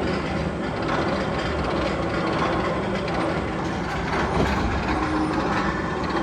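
Tunnel sound effect from the Magnum XL-200 roller coaster: a steady rumbling, train-like mechanical clatter.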